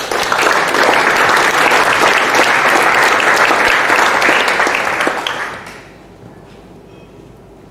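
Audience applauding: many hands clapping together, dying away about six seconds in.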